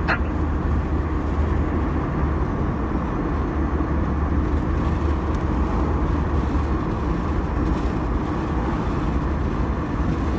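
Road and engine noise inside a moving car's cabin: a steady low rumble under an even hiss. The low rumble eases about two-thirds of the way in.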